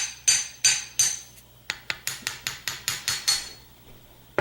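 Repeated sharp metallic taps on a disassembled padlock, knocking it to jar the stuck pin stack in chamber one out of its hole. About fifteen taps, slower at first and then quicker, stopping about a second before the end.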